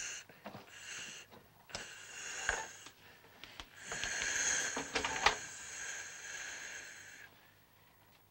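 A person's hissing, rasping breaths: several short ones, then one long breath of about three seconds from about four seconds in, with a few light clicks between.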